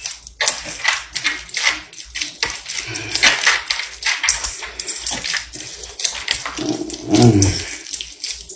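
Raw meatloaf mixture being squeezed and kneaded by hand in a glass bowl: irregular wet squelching and slapping.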